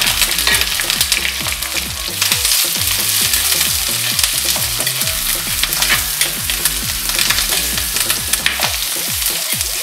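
Sliced onions and green chillies sizzling loudly in hot oil in a clay pot, stirred with a steel ladle that scrapes and knocks against the pot now and then.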